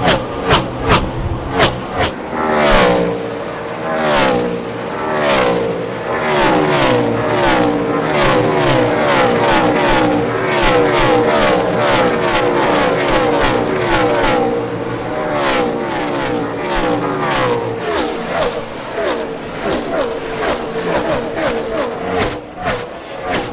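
NASCAR Cup Series stock cars' pushrod V8 engines at racing speed: a pack streams past, each engine's pitch dropping as it goes by, while one engine holds a steady note through the middle. Quick pass-bys near the start and again near the end.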